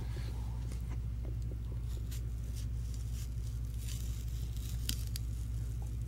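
A small blade scraping and shaving a raw vegetable stalk in a series of short, faint scrapes, made as a foley stand-in for slashing flesh, over a steady low hum.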